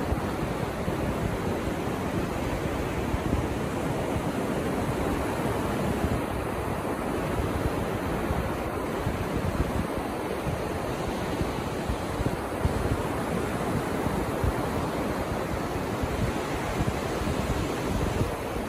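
Ocean surf breaking and washing up a sandy beach, a steady rushing without pause, with wind rumbling on the microphone.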